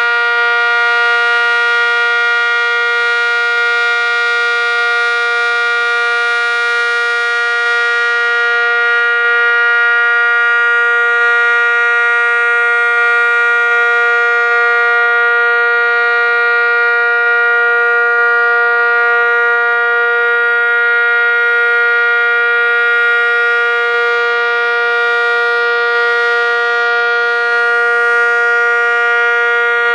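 ACA Cyclone dual-tone outdoor warning siren, its top lid missing, sounding a loud, steady two-tone chord at full speed with the pitch holding level throughout.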